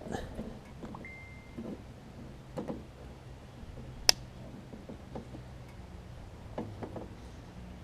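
Handling noises from work on riding-mower wiring: soft knocks and rustles as connectors and wires are moved, with one sharp click about four seconds in.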